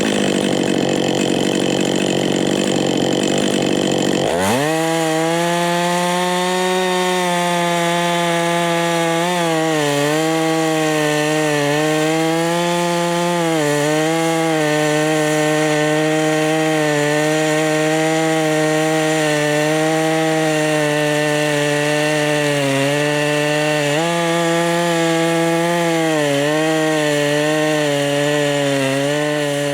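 Two-stroke chainsaw running hard under load, likely cutting wood. About four seconds in, the engine note jumps up and then holds high and steady with small dips, dropping away as the throttle is let off right at the end.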